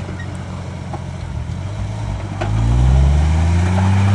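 Off-road 4x4's engine running low, then revving up about two and a half seconds in and holding at high revs under load as it powers up a steep rock wall.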